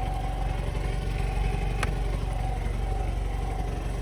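Vehicle engine idling steadily, a low rumble.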